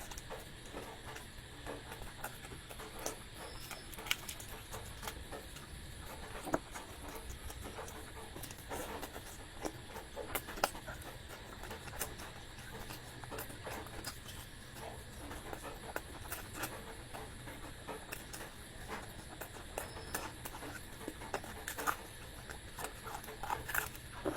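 Close-up eating sounds: a person chewing and smacking food with irregular wet clicks, over a steady low background hum.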